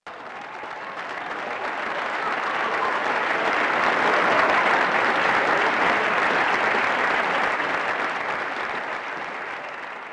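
Crowd applause, a dense even clapping that swells in over the first few seconds, peaks midway and fades out toward the end.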